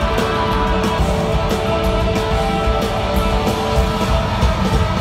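Live rock band playing loud through an arena PA: electric guitar over bass and drums, heard from among the audience.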